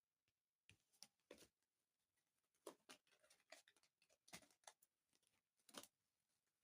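Near silence broken by faint, irregular small clicks and taps, starting just under a second in.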